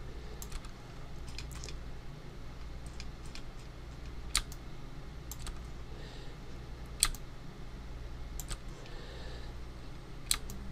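Irregularly spaced sharp clicks from computer controls (mouse and keys) as a 3-D model is navigated, about one a second, two of them louder near the middle, over a faint steady low hum.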